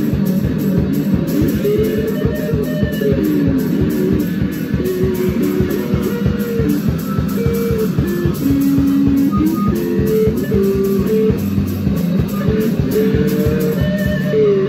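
Free improvised noise jam on guitars and drums: guitar notes slide, bend and wander in pitch without a settled tune, over a fast, unbroken clatter of hits.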